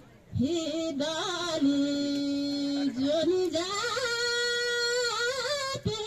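A solo voice singing Thadi Bhaka, a Nepali folk style of the Karnali region. It starts just after a short pause and sings long held notes with wavering, ornamented bends.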